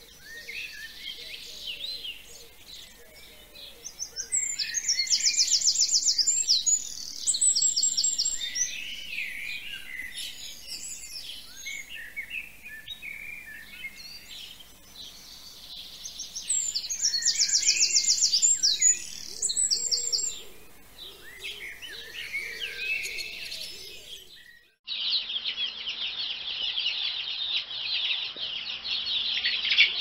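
A chorus of songbirds chirping and singing, with a loud, fast trill standing out twice. About 25 seconds in it cuts abruptly to a denser, unbroken mass of chirping from many birds.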